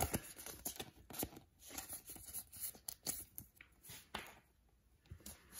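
A trading card being slid into a plastic card sleeve and handled, with soft scrapes, light taps and rustles that die down to near quiet a little before the end.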